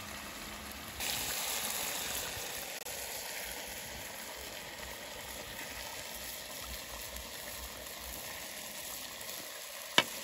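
Chicken stew simmering and sizzling in a cast-iron pan over a wood fire: a steady hiss that grows louder for a second or so about a second in. A single sharp click near the end.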